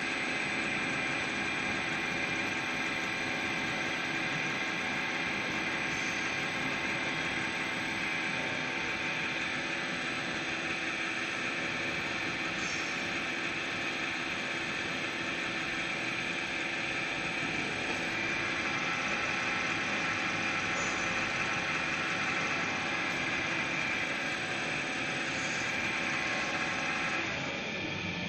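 Turbo balancing machine spinning a turbocharger's rotor during an unbalance measurement run: a steady mechanical whirr with several steady whining tones. It drops in level about a second before the end, as the run finishes.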